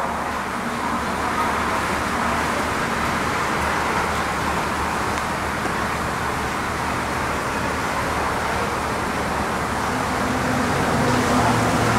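Steady rushing noise from a North Borneo Railway steam train standing at a station platform, with no distinct knocks or whistles.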